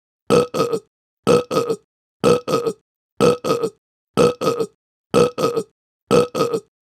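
A person burping: short double burps, each a sharper burp followed at once by a shorter second one. The same burp repeats evenly about once a second, seven times.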